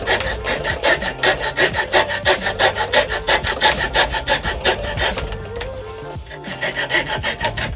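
Hand tool rasping back and forth through wood in quick, even strokes of about five a second, enlarging a drilled hole. About five seconds in the strokes stop briefly, then resume more irregularly.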